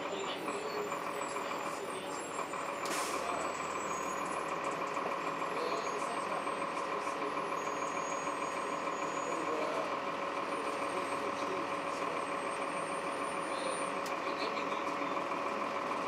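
Cabin sound of a 2002 Blue Bird CS transit bus with a Cummins ISC inline-six diesel and Allison B400R automatic transmission running. A steady whine holds one pitch from about three seconds in, just after a short hiss.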